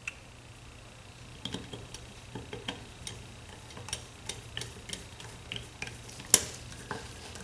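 A small screwdriver clicking and scraping on the brass and steel throttle-plate screws of a Tillotson Model X updraft carburetor as they are driven into the throttle shaft: scattered light metallic ticks, with one sharper click about six seconds in.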